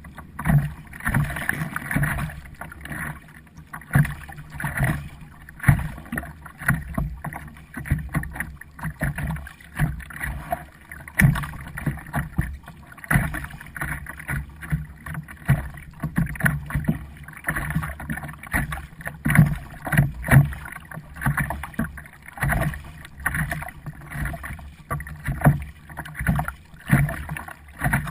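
Kayak paddling: repeated paddle strokes dipping and splashing in the water, one after another.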